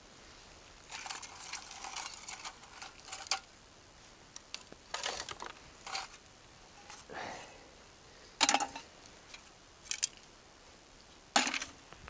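Small pieces of metal and rubble being picked out of leaf litter and tossed into a container: a spell of rustling and rattling early on, then single scattered clinks, the loudest two about eight and a half and eleven and a half seconds in.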